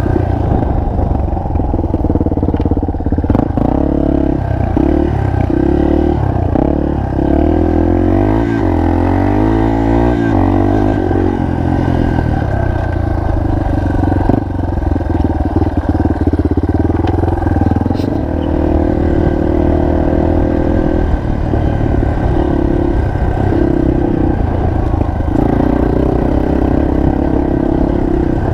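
Single-cylinder four-stroke enduro motorcycle engine running under load, its revs rising and falling repeatedly with the throttle and gear changes.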